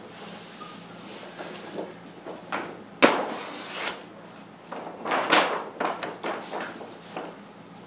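Large sheets of paper being handled: rustling and swishing as they are lifted and turned, with a sharp knock about three seconds in.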